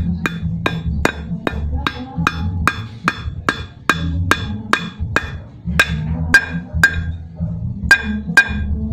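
Hammer beating on a steel drift rod to drive a new bearing into a motorcycle sprocket hub. The blows fall steadily at about two and a half a second, each with a short metallic ring. The hammering pauses briefly near the end, then comes two more blows.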